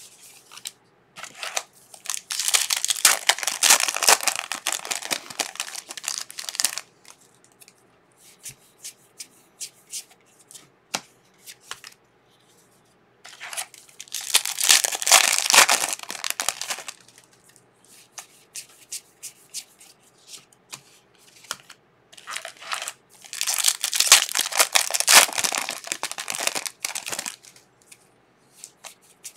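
Foil trading-card pack wrappers being torn open and crinkled, three times, each for about four seconds. In between, light clicks and slides of cards being flicked through by hand.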